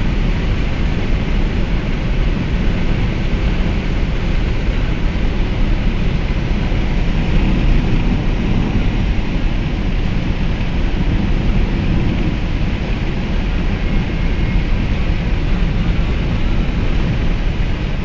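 Steady low rumble and hiss of a vehicle travelling on the highway through a rainstorm, road and rain noise blended together with no distinct thunderclap.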